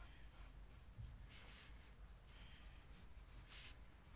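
Faint pencil scratching on paper in a series of short strokes, a few of them longer, as a line is drawn.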